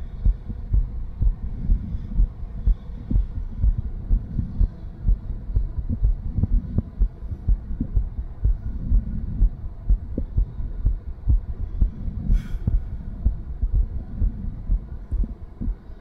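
A woman's heartbeat heard through a stethoscope on the chest after light exercise: repeated low thumps with a whooshing murmur so strong that the separate heart sounds are hard to tell apart. The murmur is the turbulent blood flow of a diastolic murmur from a stiff left ventricle (diastolic dysfunction), with perhaps a little regurgitation. A brief rustle comes about twelve seconds in.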